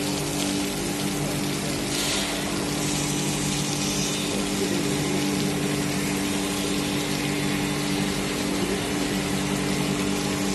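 CNC milling machine cutting under flood coolant: a steady machine hum with the continuous hiss and splash of coolant spraying from several nozzles onto the work.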